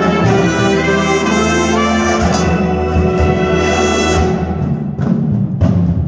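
Brass ensemble music: trumpets and trombones playing loudly over drums, with the high notes dropping away about four seconds in.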